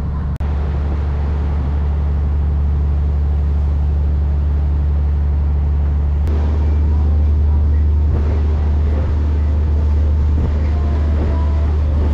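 Engine of a wooden slow ferry boat running under way with a steady low drone. There is a brief dropout about half a second in, and about six seconds in the sound changes abruptly to a noisier drone.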